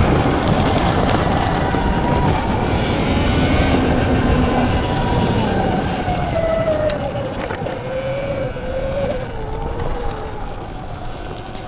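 Electric dirt bike's motor whining while riding, over a steady rushing noise; about halfway through the whine falls in pitch as the bike slows.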